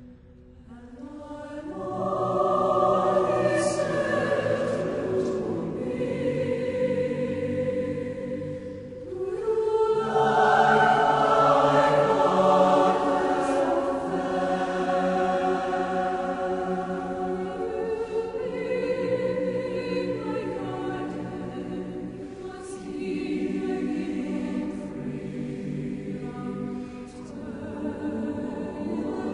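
A choir singing slow, held phrases as background music; it swells in over the first two seconds, and a new phrase begins about ten seconds in.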